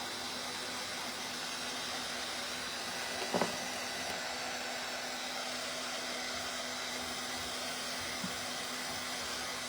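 Handheld hot-air dryer blowing steadily to dry freshly applied paint, with one brief click about three and a half seconds in.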